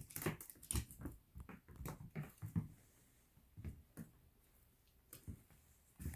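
Italian Greyhounds scuffling in play on a hardwood floor: quick irregular taps and thuds of paws and claws, busiest for the first three seconds, then sparser.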